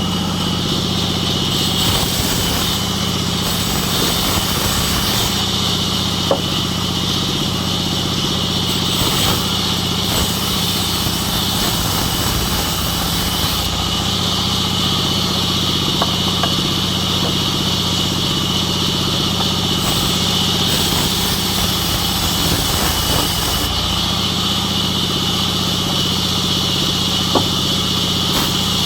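Sawmill machinery running steadily with a continuous engine-like hum and a few faint knocks.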